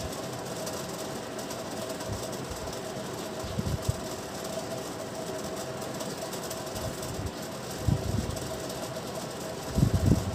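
Chalk scratching and tapping on a blackboard as words are written, with a few soft low knocks. A steady background hum runs throughout.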